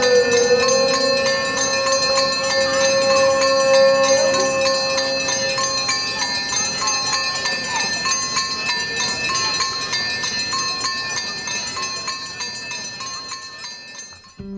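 Many bells ringing continuously in a dense, overlapping jangle, with a long steady note held through the first six seconds. The sound fades out near the end.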